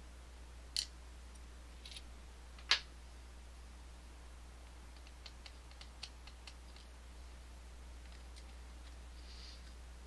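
Small metal clicks of driver pins being taken out of the bible of an Assa Twin Exclusive lock: two sharp clicks in the first three seconds, then a run of lighter ticks around the middle.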